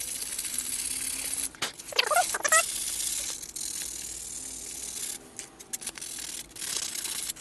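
Sandpaper rubbed by hand over a plastic fin box, roughening it so the resin will bond. A steady scratchy rasp breaks off briefly, gives a short squeak about two seconds in, and runs on before easing to lighter rubbing and handling with a few clicks near the end.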